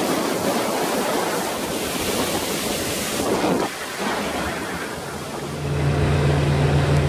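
A small boat running fast across open water: wind buffeting the microphone and water rushing past the hull. A steady, low engine drone comes in about five and a half seconds in.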